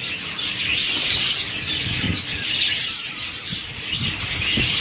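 A colony of many budgerigars chattering and chirping at once, a dense, continuous high twittering with no pauses.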